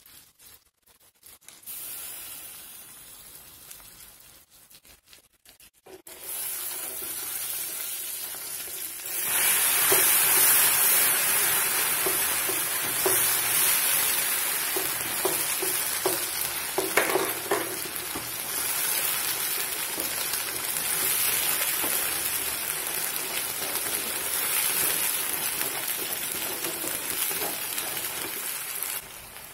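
Hot caramelized sugar in a nonstick pan sizzling loudly as a cornflour-and-water slurry is poured in and stirred with a wooden spatula. The sizzle starts about nine seconds in and runs on steadily. A few light clicks of the spatula against the pan come near the middle.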